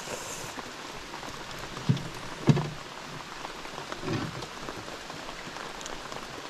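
Steady rain hissing on the river and boat, with two sharp knocks about half a second apart around two seconds in.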